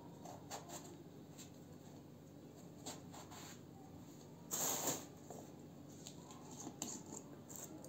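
A small knife peeling strips of skin from an eggplant, with faint scraping and light clicks, and a louder brief scuffing noise about four and a half seconds in.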